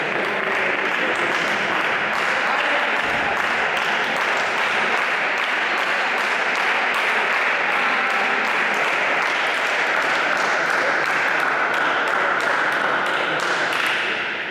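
Spectators applauding steadily, with some voices mixed in; the clapping dies away near the end.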